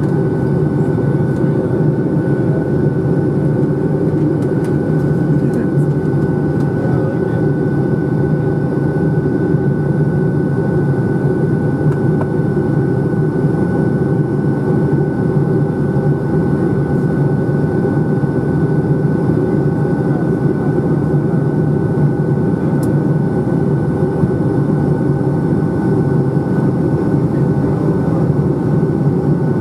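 Steady jet engine drone and rushing airflow inside the cabin of a Boeing 757-200 in its climb, with a steady high tone running through it.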